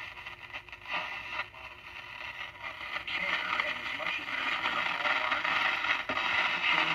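A 1954 CBS model 5165 five-tube radio's speaker hissing and crackling with static, with a few clicks, and growing louder about three seconds in. The irregular crackle is the sign of an intermittent contact, which the owner suspects is in the tube sockets or a failing silver mica capacitor.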